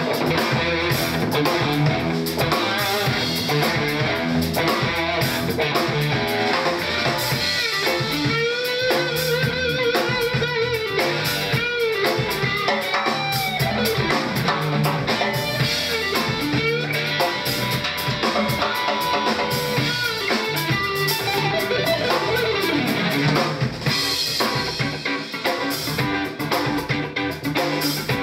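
Live band playing during a sound check: guitar over drum kit, with gliding, bending lead notes about a third of the way in; the playing thins out slightly near the end.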